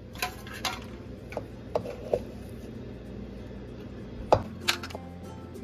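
Aluminium llanera molds and a utensil knocking and clattering on a stone kitchen countertop: several sharp, irregular taps, the loudest a little past four seconds in.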